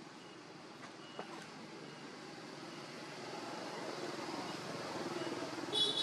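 A motor vehicle running nearby, its engine growing louder over the last few seconds. Near the end, a brief high-pitched squeal from a baby macaque.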